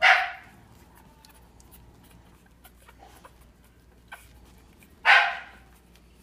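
A dog barking twice, about five seconds apart, each bark short and sharp.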